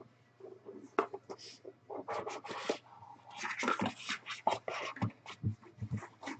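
Hands handling and opening cardboard trading-card boxes: irregular rustling and scraping of cardboard and wrapper, with sharp clicks, busiest in the middle.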